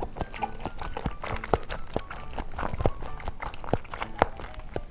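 Close-miked chewing of a mouthful of firm, bouncy gelatin grape jelly: a run of irregular wet mouth clicks, with quiet background music underneath.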